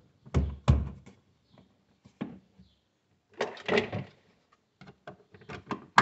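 A hand thumping and pressing the plastic temperature-control housing of a Consul refrigerator back into its seat: two dull knocks in the first second, another after about two seconds, a cluster of thumps around three and a half seconds in, then a run of light clicks.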